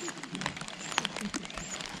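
Heavy rain falling, with irregular sharp drop taps striking nearby surfaces over a steady hiss.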